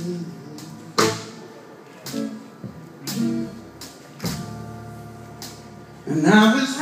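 Live blues band playing: electric guitar over drum hits about once a second, between sung lines. The singer's voice comes back in near the end.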